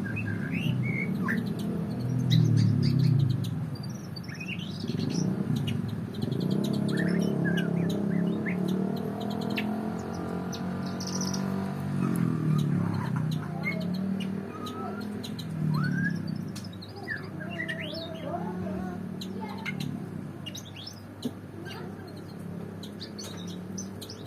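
Songbirds chirping and singing, a string of short whistled notes and quick rising and falling chirps throughout, over a louder low hum that swells and fades.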